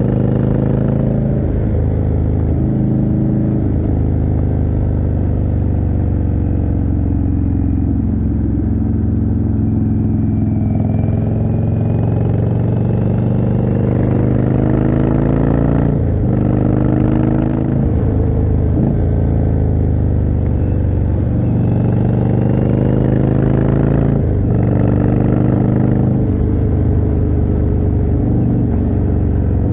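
Indian Chieftain's 1811 cc V-twin running through a Jekill & Hyde exhaust while riding, its pitch rising under throttle and falling back several times, with a few sharp breaks in the note.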